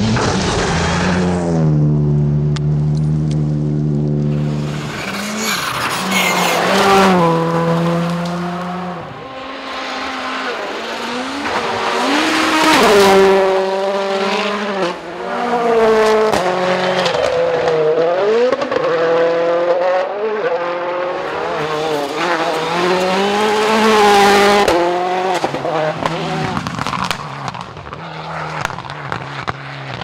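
Rally cars driven flat out on gravel stages, one after another, their engines revving up and dropping back again and again through gear changes and lifts, with the hiss of tyres and gravel underneath.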